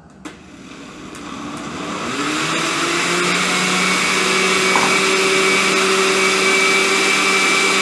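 Countertop blender switched on with a click, its motor spinning up over the first few seconds and then running steadily at speed. It is blending a runny cake batter of eggs, margarine, sugar and warm milk.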